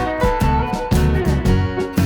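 Background music: an upbeat guitar tune with a steady beat.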